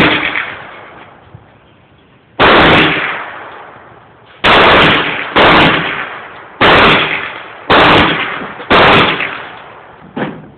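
A 9mm pistol firing six shots at an uneven pace, roughly one to two seconds apart, each crack trailing off over about a second. A fainter, shorter crack comes near the end.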